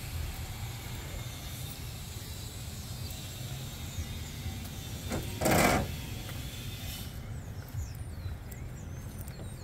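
Low, steady outdoor background noise, with one brief loud whoosh about five and a half seconds in.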